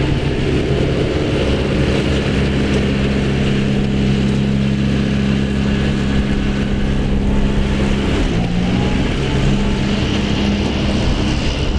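John Deere tractor engine running steadily, its pitch stepping slightly about eight seconds in.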